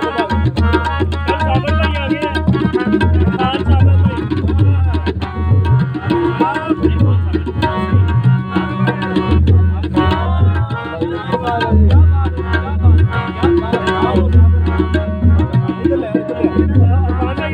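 A harmonium and a tabla playing together: held harmonium reed notes over a running tabla rhythm.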